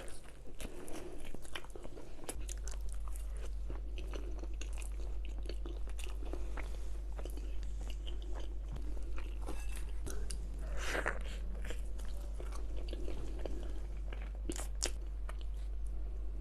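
Close-miked chewing and crunching of food, with many small wet clicks and crackles from the mouth.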